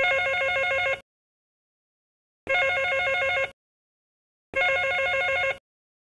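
Telephone ringing: three rings of about a second each with short silences between, each ring a fast, even trill.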